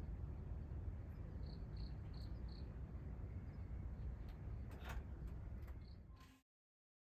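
Outdoor ambience: a steady low rumble with four faint high chirps about a third of a second apart and a few faint clicks. The sound then cuts off suddenly into silence.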